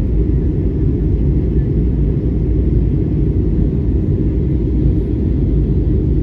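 Steady low rumble of jet airliner cabin noise, engines and rushing air heard from a window seat, as the plane descends on its approach to land.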